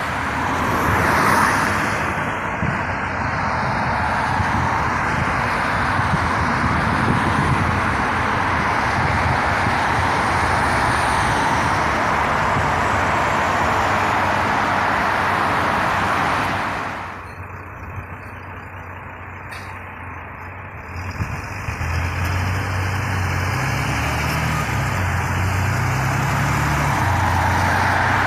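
Road traffic passing close by, cars and a city bus, with a steady rush of tyre and engine noise. After a sudden cut the noise drops away, and near the end a city bus engine's low drone rises and falls in steps as it pulls through.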